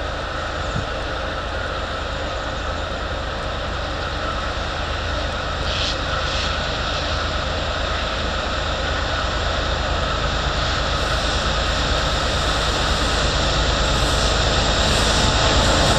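Diesel locomotive at the head of a freight train, its engine running steadily and growing louder as it approaches.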